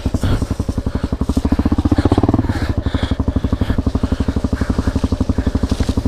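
Honda CRF250L's 250 cc single-cylinder four-stroke engine running while the bike rides along a dirt trail, with a rapid, even beat of exhaust pulses. The engine swells briefly about two seconds in.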